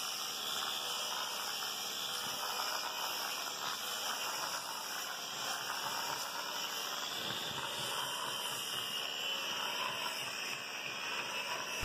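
Electric rotary sander with a sandpaper disc running against a wooden boat hull, sanding off grime to bare wood: a steady hiss with a faint whine that wavers slightly in pitch.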